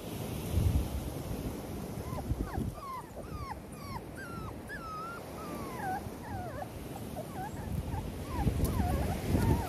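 Six-week-old XL pitbull puppies whining and yelping, a string of short high cries that rise and fall, starting about two seconds in. Wind rumbles on the microphone underneath.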